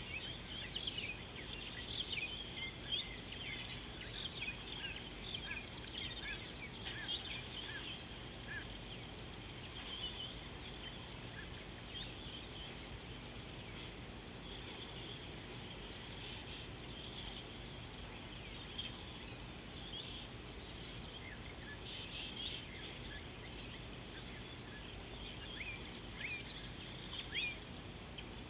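Birds chirping in many short, quick calls, thickest near the start and again near the end, over a steady outdoor background hiss.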